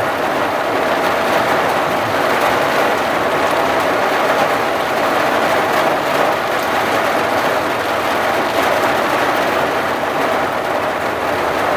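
Rain falling steadily on a vehicle's windshield and roof, heard from inside the cab as an even, unbroken patter.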